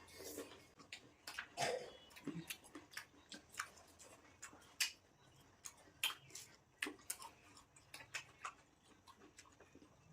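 Crisp apple being bitten and chewed: irregular sharp crunches.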